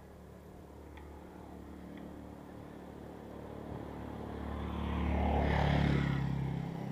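A small motor scooter's engine approaches, grows louder and passes close by, loudest about five to six seconds in, then drops away quickly near the end.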